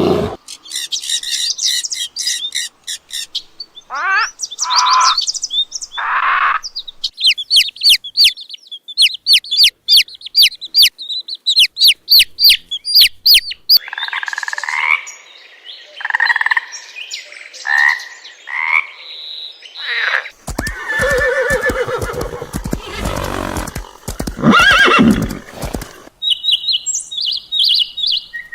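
A string of different animal calls, mostly rapid high-pitched bird chirping. About twenty seconds in there is a louder, lower call that wavers in pitch.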